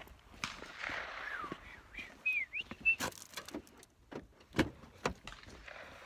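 Scattered sharp gunshot cracks at an outdoor shooting range, a few seconds apart, with a small bird chirping briefly a little over two seconds in.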